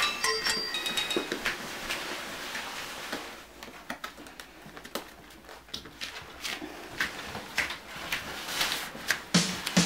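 Finnish Lapphund puppies scrabbling in and around a cardboard box on a tiled floor: scattered light clicks and scratchy rustles of claws and cardboard.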